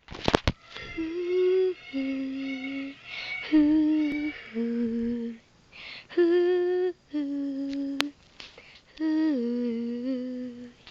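A female voice humming a slow melody unaccompanied, in a series of held notes that step from pitch to pitch with short breaths between phrases.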